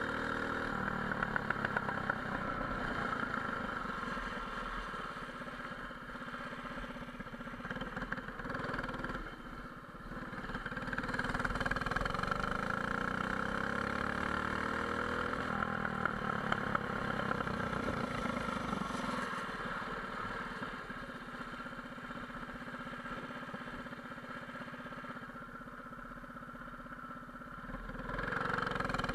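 Small go-kart engine with a racing header exhaust running under way. The engine note rises and falls with the throttle, backing off briefly about ten seconds in and again for a few seconds near the end before picking up.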